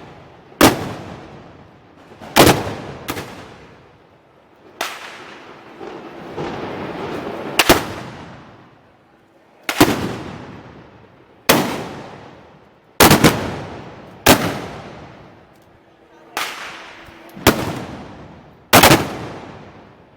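Black-powder arquebus (trabuco) shots fired by festival troops, about a dozen loud single reports one to two seconds apart, a few in quick pairs, each followed by a long echoing tail.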